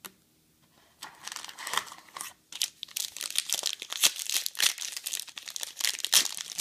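Foil trading-card pack crinkling in the hands and being torn open: a short click at the start, then crisp crackling from about a second in that, after a brief pause, goes on continuously.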